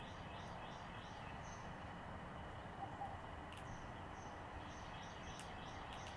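Faint outdoor ambience: a steady low hiss, with a run of soft, quick bird chirps in the first second and a half and a few light clicks past the midpoint.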